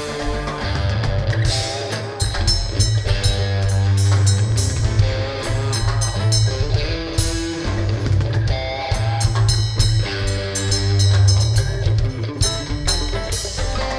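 Rock band playing, with guitar and a drum kit keeping a steady beat.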